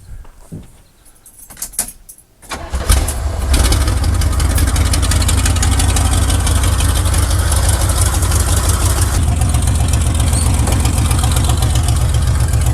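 A 1979 Chevrolet pickup's engine is cranked briefly, catches about two and a half seconds in, and then runs steadily.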